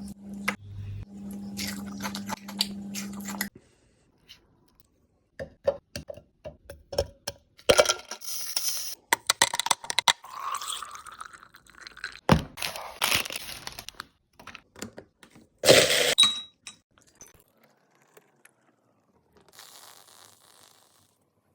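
Kitchen food-preparation sounds: a steady low hum with clicking for the first few seconds, then a series of separate clicks, crunches and scrapes, the loudest about sixteen seconds in, and a faint hiss near the end.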